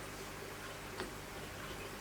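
A single light click about a second in, with a few fainter ticks, over a faint steady hum.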